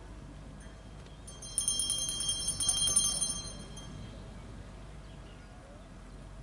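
A small bell rung rapidly, a bright jingling ring that starts a little over a second in and stops about four seconds in.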